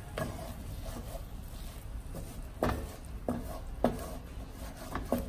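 Wooden spatula stirring ground beef in a nonstick wok, scraping through the meat and knocking sharply against the pan about half a dozen times.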